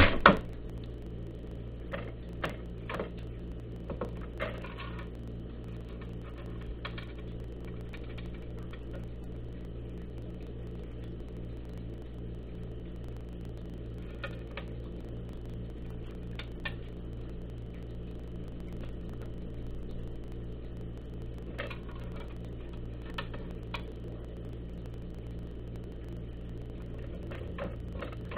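A cat knocks loudly against the top of a plastic automatic pet feeder once at the start. It then eats dry kibble from the feeder's tray, with scattered short crunches and clicks every few seconds over a steady low hum.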